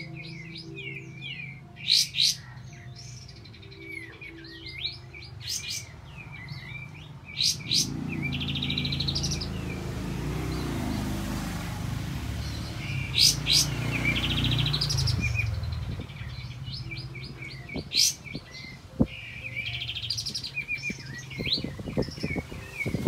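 Sooty-headed bulbul (kapas tembak) singing: repeated sharp whistled calls and quick chirps, with short fast rolling trills twice. A low rumble sits under the song for several seconds in the middle.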